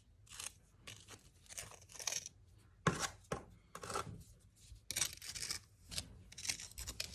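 Irregular short scraping and rustling strokes from hand work filling gaps in old fireplace brickwork, with a couple of sharp clicks about three seconds in.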